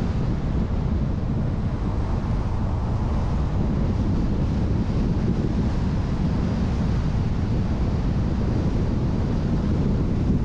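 Steady wind and road noise from a car-mounted action camera's microphone while driving, heaviest in the low end, with no distinct events.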